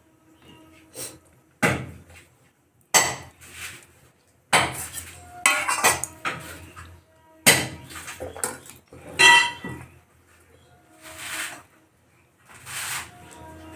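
Wooden spatula knocking and scraping against a metal kadhai while stirring a thin curry, about six sharp clatters at irregular intervals.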